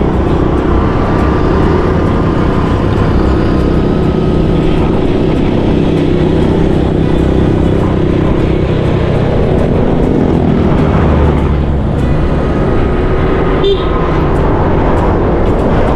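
Motorcycle engine running steadily while riding along a road, with other motor traffic close by.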